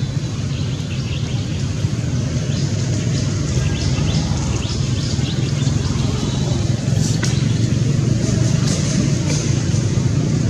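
Steady low rumble of a motor vehicle engine running, with scattered faint high chirps over it.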